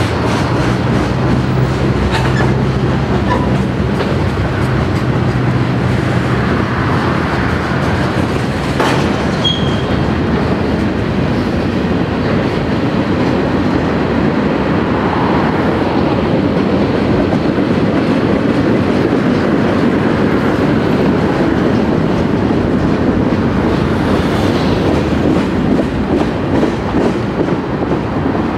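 Freight train of tank cars and boxcars rolling steadily past, its wheels on the rails making a continuous loud rumble with a brief high squeak about a third of the way through.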